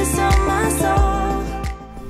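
Background music with a steady beat, dropping in level near the end.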